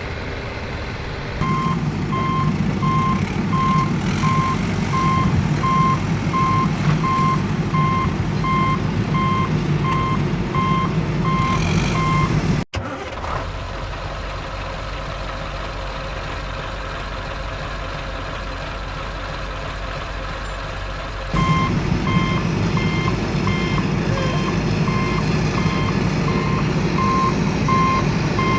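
A construction vehicle's reversing alarm beeping about twice a second over its running engine. The beeping stops abruptly a little before halfway, leaving a lower engine rumble, and starts again with the engine about three quarters of the way through.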